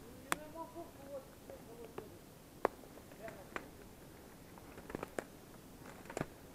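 Quiet forest: a faint distant voice in the first two seconds, then scattered faint sharp clicks and snaps.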